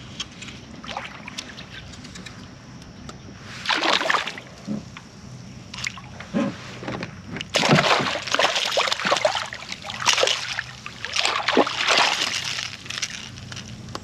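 A small hooked speckled trout splashing at the surface beside a kayak as it is reeled in and scooped up in a landing net. One short splash about four seconds in, then a long run of irregular thrashing splashes over the second half.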